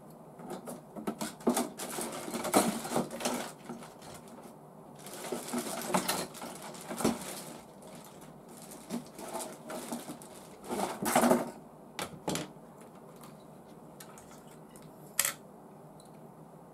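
Clear plastic parts of a model V8 engine kit being handled: irregular bursts of clicking, clattering and rustling, with a single sharp click near the end.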